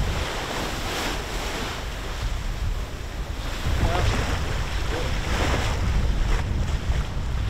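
Wind buffeting the microphone and waves washing past the hull of a sailing catamaran under way, a steady rushing noise with a low rumble.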